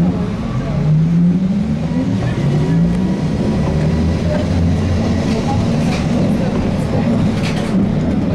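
ZiU-682G trolleybus traction motor whining and rising in pitch as the trolleybus accelerates, over the steady rumble of the ride, heard inside the passenger cabin.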